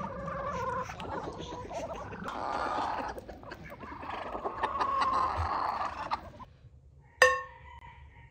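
Chickens clucking for most of the stretch. About seven seconds in comes a single sharp metallic clink that rings briefly.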